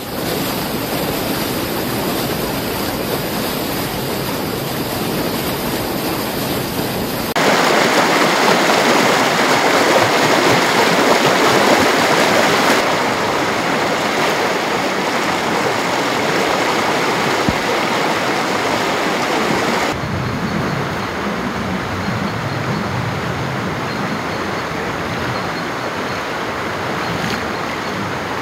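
Steady rush of a river in spring flood, running high over its banks. The level and tone jump abruptly three times.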